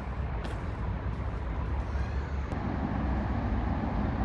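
Steady low rumble of outdoor background noise, with a few faint clicks from the camera being handled.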